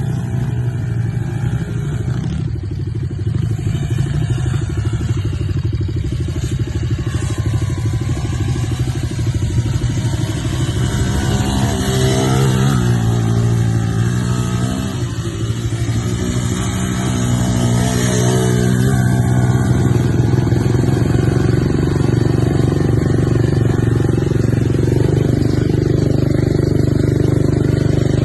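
Tornado 250 quad's engine running under load, its pitch rising and falling with the throttle about halfway through, then holding higher and louder for the last several seconds.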